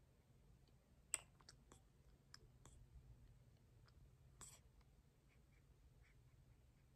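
Near silence with a few faint, scattered clicks as a newborn sucks milk from a baby bottle, the sharpest about a second in.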